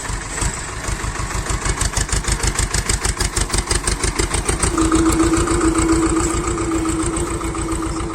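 Small 24 HP tractor engine running with a steady, fast pulsing beat; about five seconds in a steady whine joins it.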